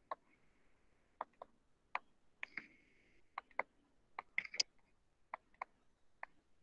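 Faint, irregular clicks and taps, about two a second, from handwriting input on a computer whiteboard.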